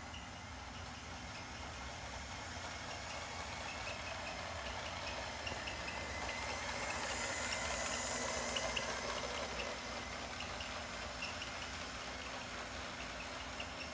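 LEGO steam locomotive running along plastic LEGO track: a small electric motor's hum and faint whine with a string of light clicks from the wheels over the track, loudest as it passes close about seven to nine seconds in.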